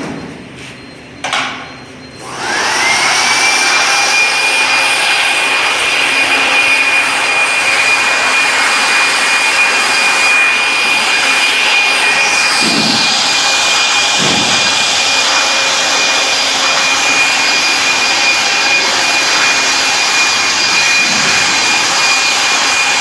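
Handheld electric air blower switched on about two seconds in: its motor whine sweeps quickly up to a steady high pitch and runs on with a loud, even rush of air as it is aimed at the diesel generator's engine and air filter. A short knock comes just before it starts.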